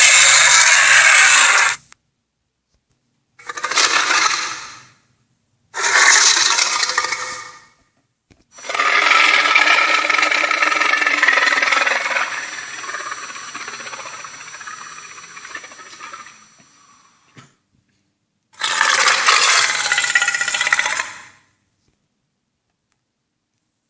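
Made-up Acrocanthosaurus sound effects: a series of harsh, pitched dinosaur roars with dead silence between them. The first roar ends about two seconds in, three more follow, and the fourth runs about eight seconds, fading out slowly. One last shorter roar comes near the end.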